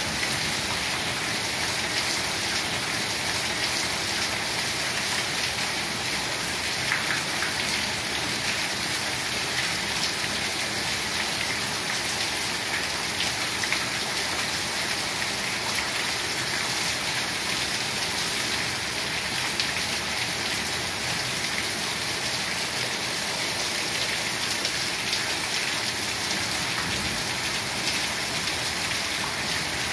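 Heavy rain pouring down steadily, an even dense hiss of drops that stays at the same strength throughout.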